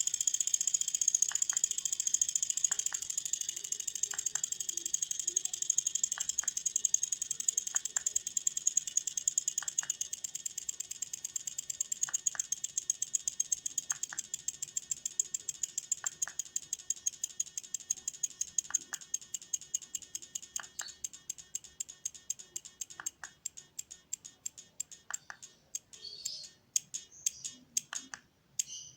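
Rapid, even ticking that gradually slows and fades until only a few separate clicks are left near the end, with a separate duller tick about every second and a half.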